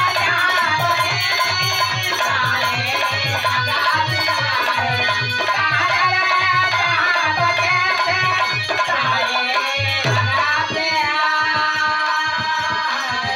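Dholak and harmonium playing a folk bhajan accompaniment: a steady beat of drum strokes under the harmonium's held chords, with a falling bass slide on the drum about ten seconds in.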